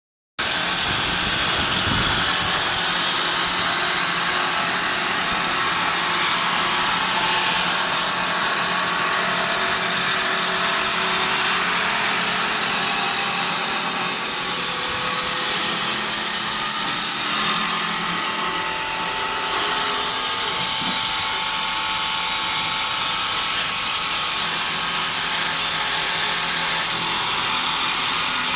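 Automatic wood lathe running and cutting wood: a steady motor hum under a dense, continuous high-pitched hiss of cutting. The sound eases slightly about two-thirds of the way through.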